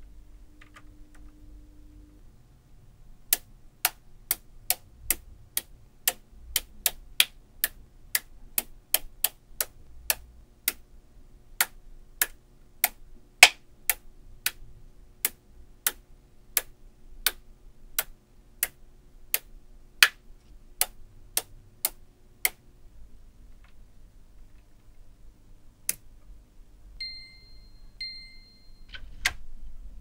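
Small magnetic balls snapping one by one onto a magnetic-ball structure: sharp single clicks, about two a second, that stop about three-quarters of the way through, with one more click afterwards.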